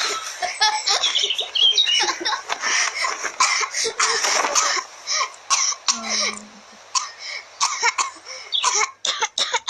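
A person laughing in short, irregular bursts, with coughs mixed in.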